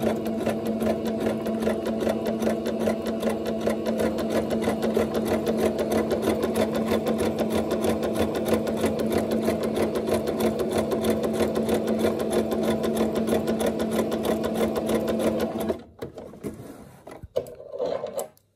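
Singer Starlet electric sewing machine stitching a wide zigzag: a steady motor hum with rapid, even needle strokes. It stops abruptly about 16 seconds in, followed by a few faint clicks.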